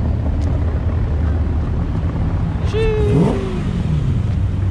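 Car engines running at idle, a steady low rumble, with a brief pitched sound rising and falling about three seconds in.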